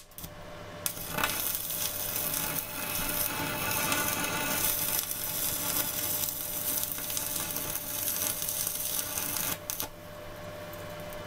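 Stick-welding arc from an MMA 250A IGBT inverter welder at turned-down current: a few sharp crackles as the rod is scratched to strike, then a steady crackle for about eight seconds that stops abruptly when the arc is broken near the end. A steady hum stays underneath.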